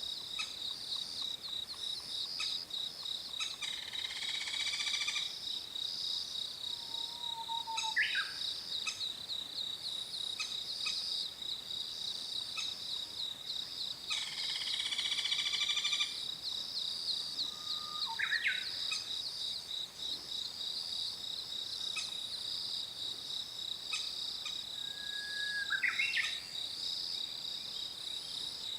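Adult crested kingfisher calling: two harsh rattling calls of about a second and a half each, a few seconds in and about halfway through, with short sharp calls between, as it coaxes its chick to the nest-hole entrance with food. A steady pulsing insect trill runs underneath.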